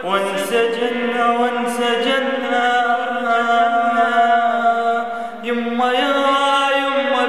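A man singing an Arabic mawwal, holding long drawn-out notes with slow ornamented turns in pitch. A short break comes about five and a half seconds in before he starts a new phrase.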